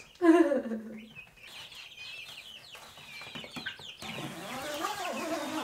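Young australorp chickens peeping and clucking, many short high chirps with some lower warbling calls, opening with one loud falling call.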